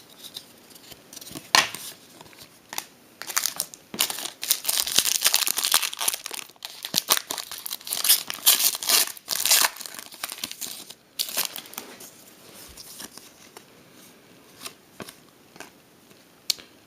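Trading-card pack wrapper being torn open and crinkled, a dense run of crackling in the middle, with scattered clicks and rustles from cards being handled before and after.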